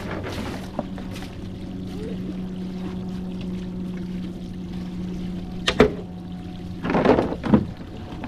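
Water pouring into a boat's live well over a steady motor hum. Two sharp knocks come just before six seconds in, then a louder splashing burst about seven seconds in.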